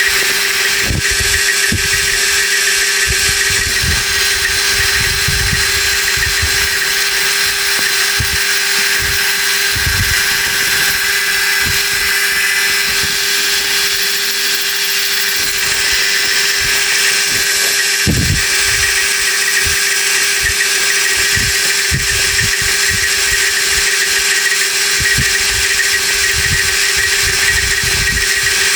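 Slitting saw cutting a 1 mm slot into a steel part: a steady machine hum under a continuous high, hissing cutting noise, with a few low thuds here and there.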